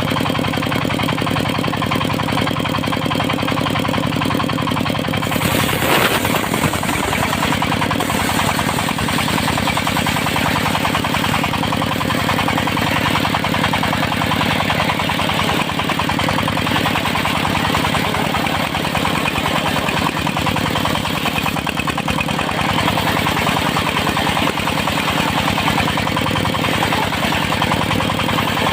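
Engine of a circular-saw sawmill running steadily. About five seconds in the sound changes and turns rougher and more noisy, and stays that way to the end.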